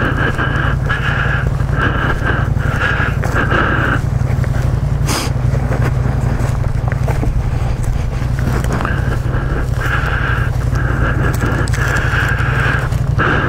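Wind buffeting the microphone in a steady low rumble, with footsteps crunching on a dirt forest road and a high buzz that comes and goes in short pulses.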